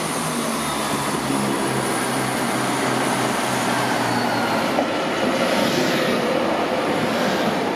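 Passenger train pulling in alongside the platform, its wheels running on the rails and growing louder as the coaches pass close by, about five seconds in. A steady low engine drone can be heard through the first half.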